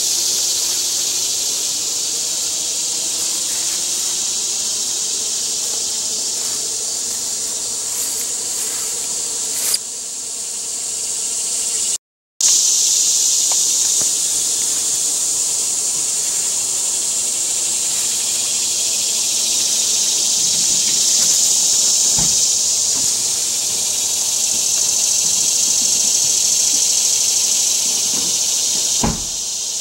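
Insects buzzing in a steady, high-pitched chorus, broken by a moment of silence about twelve seconds in, with a few faint clicks.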